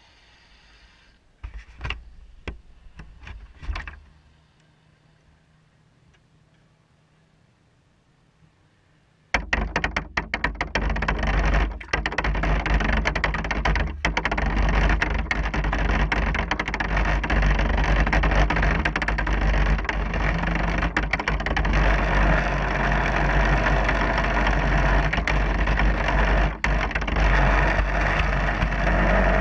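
Sound from a camera mounted on a radio-controlled speedboat. After a few soft knocks it is nearly quiet, then about nine seconds in a loud rush of water and wind starts suddenly, with many hull slaps on the chop as the boat runs at speed.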